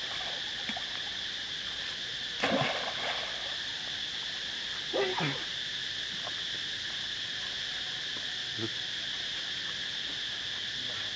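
Steady high-pitched drone of insects. A brief burst of noise comes about two and a half seconds in, and a short animal call falling in pitch about five seconds in.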